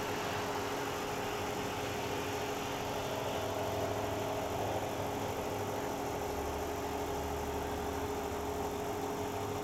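An engine running steadily, a constant droning hum, with a deeper rumble joining about six seconds in and easing off near the end.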